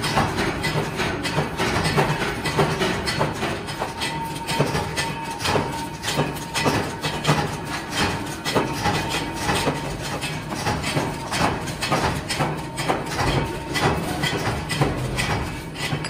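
Workshop machinery running with a steady hum, over frequent sharp metallic clinks and knocks of steel motor-stator laminations and press parts being handled.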